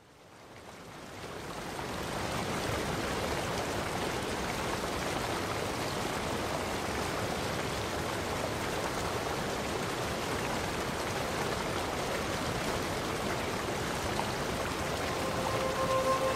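Steady rushing of running water, fading in over the first couple of seconds and then holding even. Near the end, music with long held tones comes in over it.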